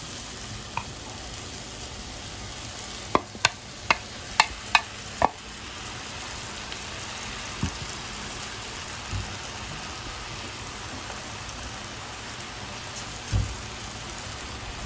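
Egg noodles and vegetables sizzling in a steel wok as they are stirred with a wooden spatula, a steady frying hiss. About three to five seconds in there is a quick run of six sharp knocks of the spatula against the wok, with a few duller thumps later.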